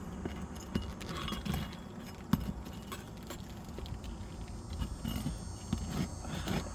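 Scattered clicks and knocks of metal hand tools working nails loose from asphalt roof shingles, with one sharper knock a little over two seconds in.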